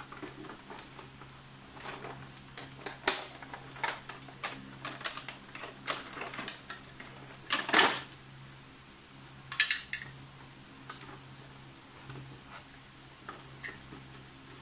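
Hard plastic clicks and knocks from the open Epson L360 printer's scanner lid and inner mechanism being handled, with a louder clatter about eight seconds in and a short rattle just before ten seconds. A low steady hum runs underneath.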